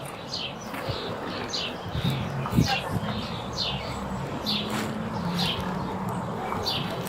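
A bird chirping over and over: short high chirps that drop in pitch, about one or two a second, over a steady low hum.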